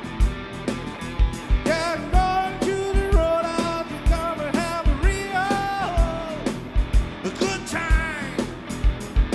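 A man singing a blues-rock song while strumming a Fender electric guitar, over a steady low thumping beat about twice a second.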